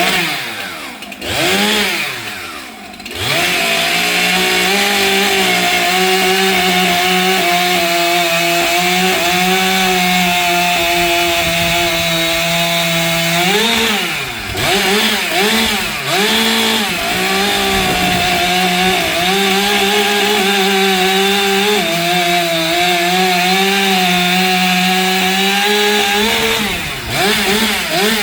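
Stihl chainsaw cutting timber, running at a steady pitch under load. Its speed dips and picks up again briefly near the start, about 14 to 17 seconds in, and near the end.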